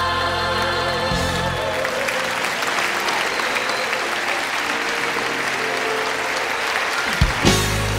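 A gospel choir and band hold a final chord that stops about a second and a half in, followed by audience applause. Near the end a thump is heard and music starts up again.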